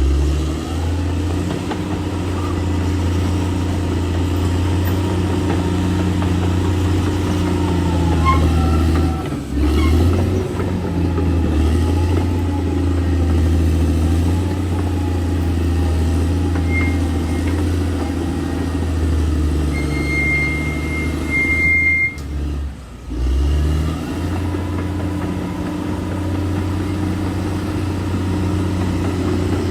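Bulldozer's diesel engine running steadily with a deep drone, dropping briefly a few times. About two-thirds of the way through, a thin high squeal sounds for about two seconds.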